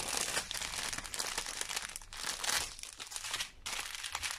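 Clear plastic packaging crinkling as a folded strip of small sealed bags of diamond painting drills is handled and unfolded, with brief pauses about two seconds in and again near the end.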